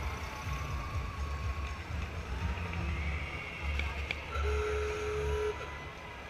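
Low uneven rumble of antique cars driving slowly past, under distant crowd voices. A short steady tone sounds about four and a half seconds in and stops a second later.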